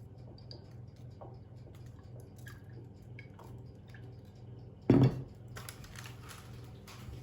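Kitchen food-preparation sounds: small wet clicks and drips over a steady low hum, then one loud knock about five seconds in, followed by a few seconds of busier handling noise.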